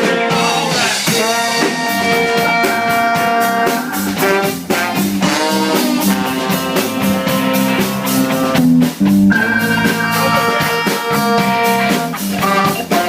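Live band music: guitar playing held and picked notes over a drum kit keeping a steady beat.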